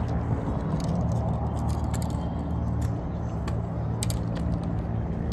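A steady low engine hum, with scattered light clicks from a spinning reel being cranked.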